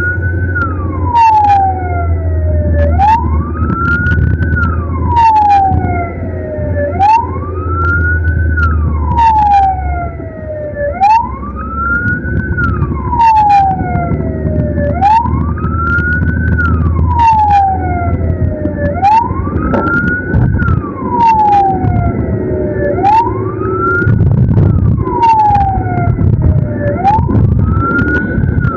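Ambulance siren wailing, its pitch rising and falling about every four seconds, with short sharp chirps about once a second on top, over the low rumble of the vehicle driving.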